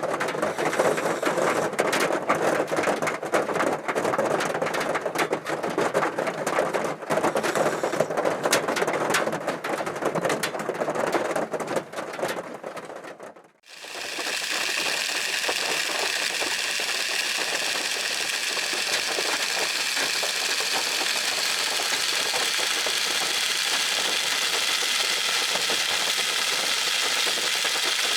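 Heavy typhoon rain drumming on a car's roof, a dense patter of many small hits. About thirteen seconds in it fades out briefly, and a steady, higher-pitched hiss of rain takes over.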